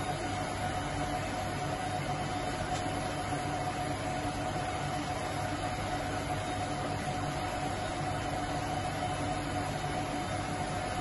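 A steady mechanical drone with a constant hum, unchanging throughout; no blast or impact stands out.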